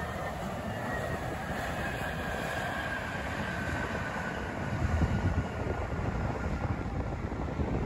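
Airbus A320-family airliner's jet engines at takeoff thrust as it rotates and climbs away: a steady rushing noise with a faint whine that slides slowly down in pitch. Wind buffets the microphone briefly about five seconds in.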